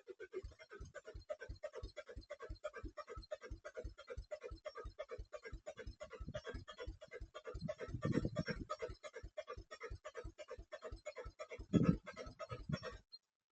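A car's diesel engine being cranked over by the starter without catching, an even rhythm of compression pulses about four to five a second, with a couple of louder surges around 8 and 12 seconds, then the cranking stops suddenly near the end. This is a crank-no-start, with the fault traced to the injection pump and its timing.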